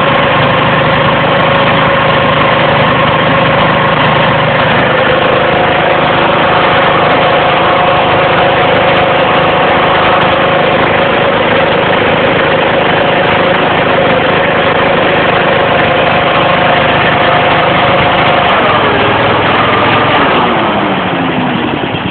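Vanguard 9 hp petrol engine driving a 24-inch Leader PPV fan, running loud and steady with the fan blowing. In the last few seconds the engine slows, its pitch sliding down and the sound dropping off.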